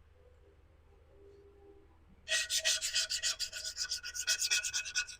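Rapid back-and-forth scraping against a ceramic bonsai pot, starting about two seconds in at roughly ten strokes a second, as excess glue is cleaned off its surface.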